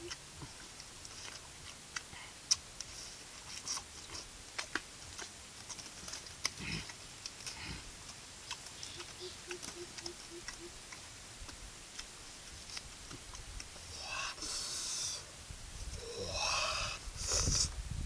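A large knife paring the peel off green fruit: scattered small clicks and scrapes as the blade bites into the rind. Near the end come a few louder breathy, hissing sounds.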